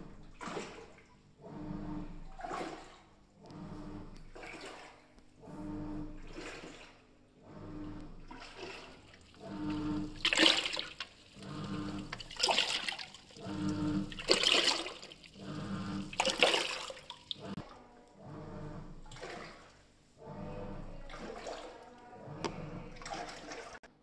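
Panasonic top-load washing machine agitating a full tub of water during its tub-hygiene (descaling) cycle: the motor hums and the water swishes and sloshes in surges about every two seconds as the pulsator turns.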